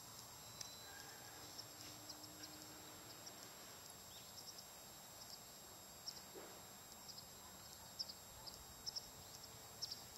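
Near silence: faint outdoor ambience with scattered short, high chirps, and a thin steady high tone underneath.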